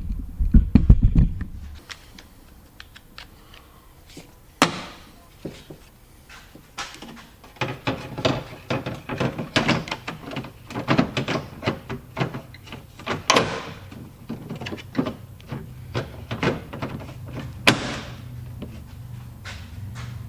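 Hand work on parts of the Jeep's open hatch. Heavy thumps come in the first second or so, then a sharp click about five seconds in, and after that a long run of irregular clicks and knocks.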